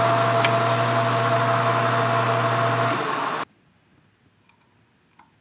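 A metal lathe runs with a steady hum and whine as a boring bar takes a light cut inside a bronze hub's bearing bore. The sound cuts off abruptly about three and a half seconds in, leaving near silence with a few faint light clicks as the bearing is tried in the bore.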